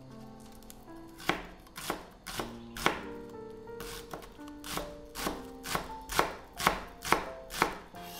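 Chef's knife chopping scallions on a bamboo cutting board: sharp, even strikes about two a second, with a short pause about midway.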